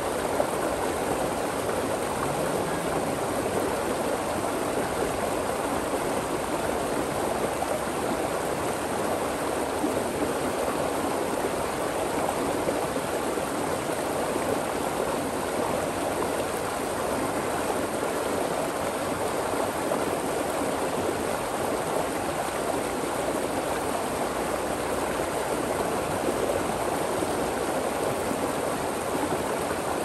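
A stream of water flowing over and between rocks, a steady, even babble.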